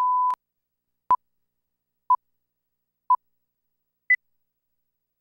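Test-pattern reference tone held steady, cutting off just after the start, then a film-leader countdown: short beeps once a second, three at the same pitch and a fourth, higher one.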